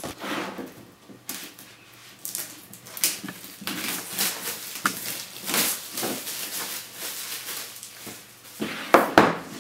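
Clear plastic shrink-wrap being torn and peeled off a cardboard board-game box, crinkling irregularly throughout, with a few sharp knocks near the end as the box is handled on the table.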